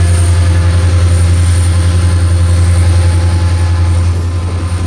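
Norfolk Southern diesel-electric freight locomotives passing close by, their engines making a loud, steady low drone that eases slightly near the end.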